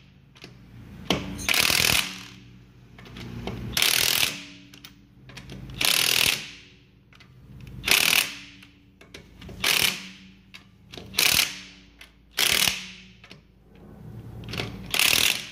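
Hand ratchet wrench tightening wheel lug bolts, clicking in a short run on each backswing: about eight runs, one every second and a half to two seconds.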